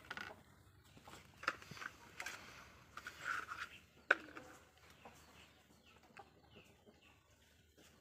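Small objects being handled: rustling and scraping, with a sharp click about four seconds in. Faint bird chirps follow.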